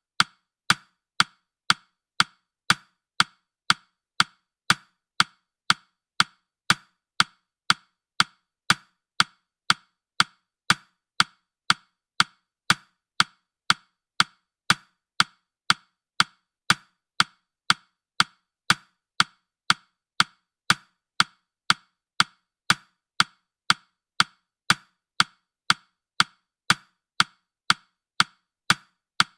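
Clock-tick sound effect of a countdown timer: sharp, even ticks at about two a second.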